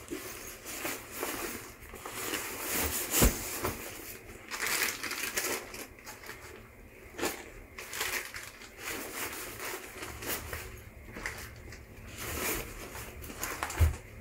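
Irregular rustling, crinkling and knocking of items being handled and packed into a bag, with a sharp knock about three seconds in.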